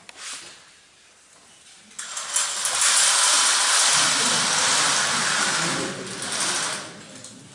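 Audience applauding, starting suddenly about two seconds in and dying away near the end.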